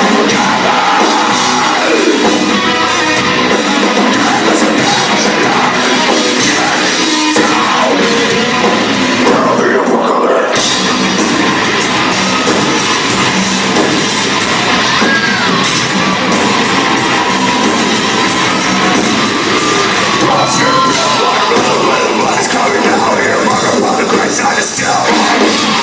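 Heavy metal band playing live, with singing and yelled vocals over the full band.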